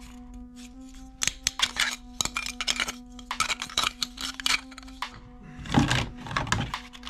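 Plastic toy binoculars and toy guns clicking and clattering against each other as they are handled in a cardboard box, with a louder scraping shuffle near the end as a hand pushes into the pile. Background music with a steady held tone runs underneath.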